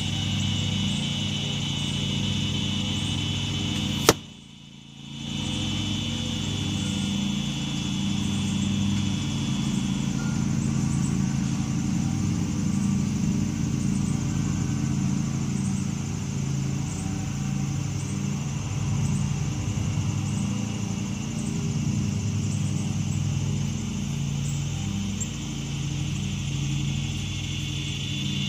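A broadhead-tipped arrow hits a foam block archery target close by: a single sharp hit about four seconds in. Under it runs a steady low engine-like hum.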